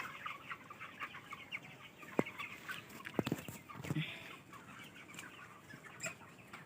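A flock of farm-raised poultry chickens clucking and chirping continuously, many short calls overlapping. Two sharp clicks come about two and three seconds in.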